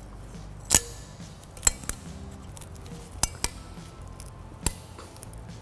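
Steel brake pad slide clips being pressed back onto a cast caliper bracket: about half a dozen sharp metallic clicks and clinks spread irregularly, a couple of them close together.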